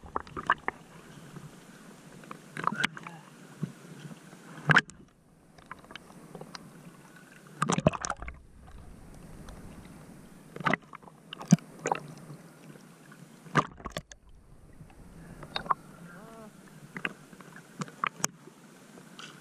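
Small sea waves sloshing and splashing against a camera held at the waterline, with irregular sharp splashes and a few brief moments where the sound goes dull and muffled.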